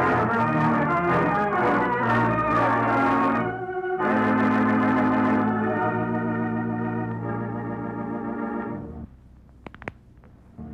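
Organ music bridge of held chords in two phrases, the second fading out about nine seconds in, marking a scene change in the radio drama; a few faint clicks follow near the end.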